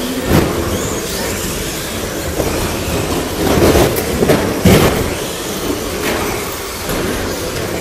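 Radio-controlled short-course cars racing on an indoor carpet track, a steady rumble of motors and tyres in an echoing hall, with several thuds as cars land off jumps or strike the track boards.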